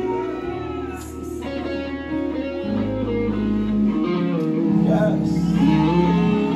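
Church band music led by guitar over held chords, with the low notes stepping to new pitches twice.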